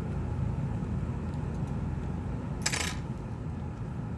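A tool prying at a sticking tablet battery in its plastic frame gives one short, sharp scraping click about two and three quarter seconds in. A steady low hum runs underneath.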